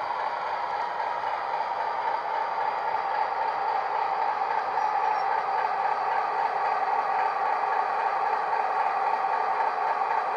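Hornby Class 60 model locomotive's DCC sound decoder playing the Legomanbiffo Class 60 diesel engine sound through a 25x25x7mm Megabass speaker, a steady engine drone that slowly grows louder as the model draws near.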